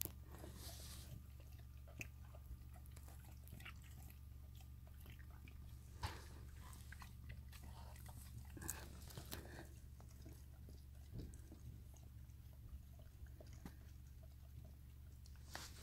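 Faint wet chewing and licking from a springer spaniel mother working at her newborn puppy, eating something just after the birth, heard as scattered small clicks and smacks over a steady low hum.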